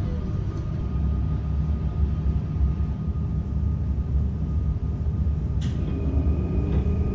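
Steady low rumble of a moving vehicle, with a faint steady whine above it.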